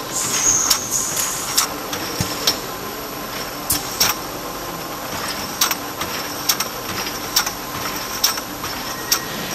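Aerosol valve checkweighing machine running: a steady mechanical hum with irregular sharp clicks, about one or two a second, as the metal valve cups knock against each other and the guides on the infeed rail and turntable.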